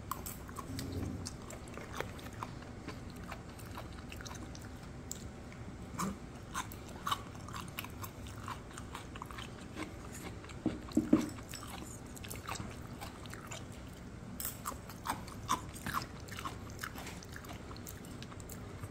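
A person chewing a mouthful of food, with scattered small mouth clicks and a couple of slightly louder low thumps about a second in and around eleven seconds in.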